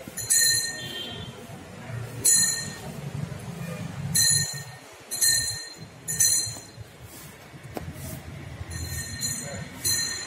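A small metal bell struck in single strokes about every one to two seconds, each stroke ringing high and dying away quickly, over a steady low rumble.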